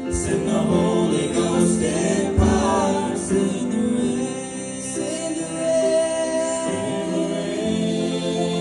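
Men's gospel vocal group singing in harmony, with long held notes.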